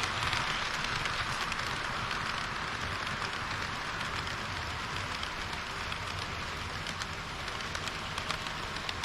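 HO-scale model train running along the layout track: a steady rolling hiss and rumble of wheels on rails, with faint clicks that grow more frequent near the end.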